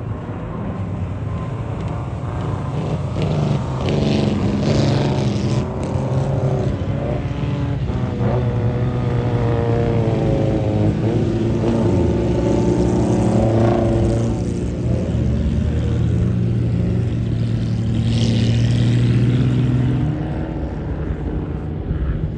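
Engine noise with a low, steady pitch and a ladder of overtones. The pitch slides up and down through the middle as the source passes, and the strongest low part cuts off sharply near the end.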